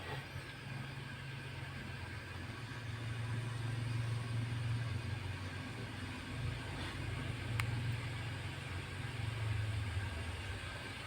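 Cat purring close to the microphone, a low steady rumble that swells and eases with its breathing. One sharp click comes about two-thirds of the way through.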